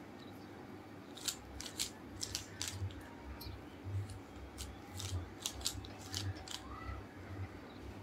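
Plastic 3x3 Rubik's cube being turned by hand: a quick, irregular series of light clicks as the layers snap round.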